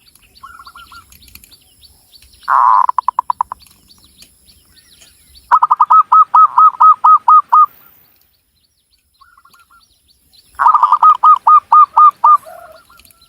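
Zebra dove (perkutut) singing its staccato cooing song. Three phrases in a row, each a quick run of evenly spaced clipped coos, some opening with a louder burst, with a few soft short notes in between.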